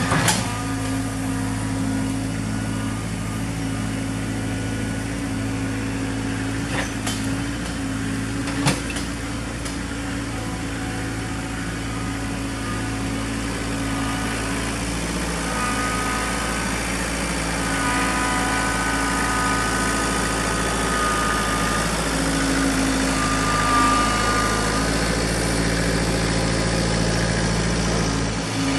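Kubota B3030 compact tractor's three-cylinder diesel engine running steadily while carrying a load of brush and a stump on its front loader forks. A few sharp knocks come in the first nine seconds, and a higher whine joins in about halfway through as the tractor drives up close.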